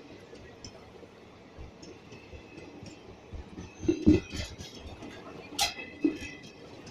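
Passenger train coaches passing close at speed: a steady rush of wheels on rail with irregular metallic clanks and clinks. The heaviest thuds come about four seconds in, followed by a sharp metallic click and a smaller knock.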